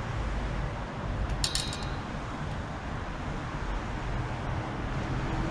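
Steady outdoor background noise with a low rumble, like wind and distant road traffic, and a brief rapid clinking about one and a half seconds in.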